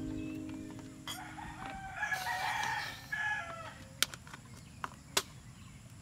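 A rooster crowing once, about two seconds in, for a second and a half. A strummed acoustic guitar chord fades out at the start, and a few sharp clicks follow near the end.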